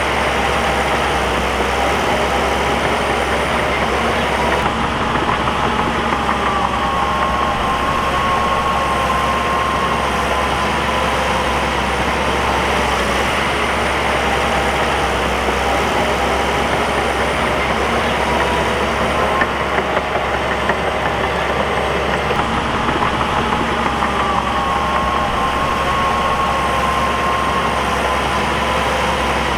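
Crawler bulldozer's diesel engine running steadily as it works dirt. A higher whine rises and holds for several seconds, twice.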